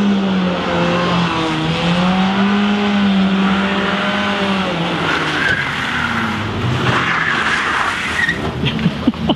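Car engine held at high revs during a burnout, the revs wavering up and down, with tyres squealing and hissing against the tarmac; the tyre noise grows in the second half, and a few sharp clicks come near the end.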